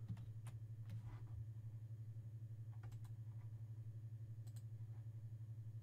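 Faint, scattered clicks of a computer mouse and keyboard as a list is copied and pasted between a web page and a spreadsheet, over a steady low hum.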